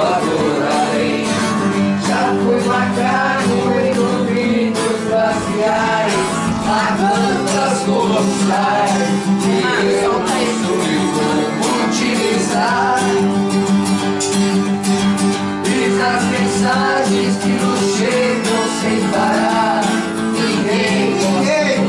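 Acoustic guitar being strummed while a man sings along to it.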